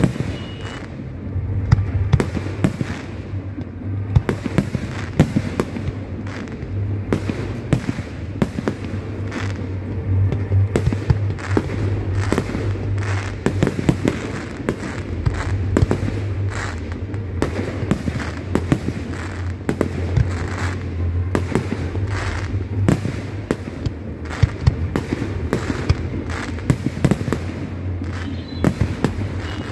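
Aerial fireworks display: shells bursting in quick succession, a dense run of bangs and crackles with hardly a pause.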